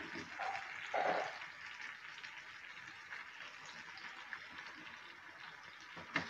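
Spiced fish pieces shallow-frying in oil in a nonstick pan, sizzling faintly and steadily. There are a couple of brief louder sizzles in the first second or so as the pieces are turned over with a wooden spatula.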